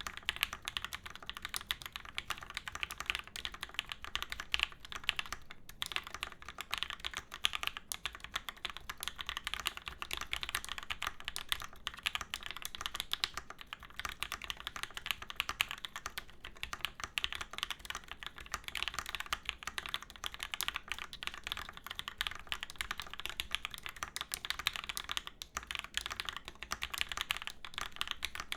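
Fast, continuous typing on a Praxis IM mechanical keyboard with lubed Gateron Yellow Milky Top linear switches, an aluminium plate, top mount, no foam and JTK Zen keycaps. It is a rapid stream of keystroke clacks with a few brief pauses.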